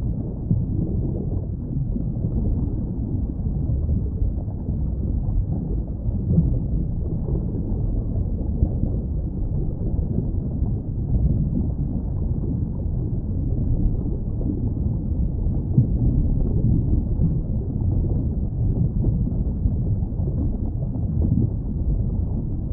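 Underwater ambience: a steady, muffled low rumble with nothing in the upper range, as heard with the ears under water.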